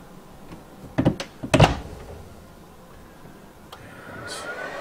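Two knocks about half a second apart from the Aristocrat M Plus 25D cabinet humidor's door being handled, the second louder; a faint rising whine starts near the end.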